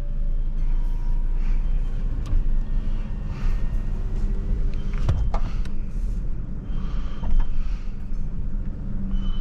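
2021 Toyota Tacoma pickup truck running at low speed, a steady low rumble with a few sharp knocks and rattles, loudest about five seconds in.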